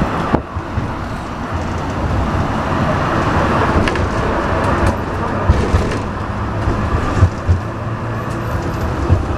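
Z-class tram running along the street, heard from inside the car: a steady rumble of wheels on rails and body rattle, with a few short knocks and clicks.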